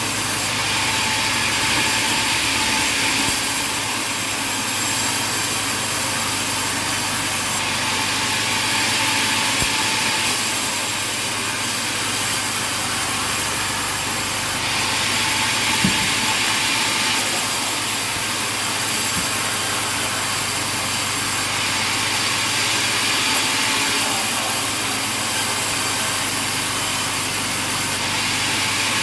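Sawmill machinery running steadily, with a high hiss that swells and fades about every seven seconds. There is a single sharp knock about sixteen seconds in.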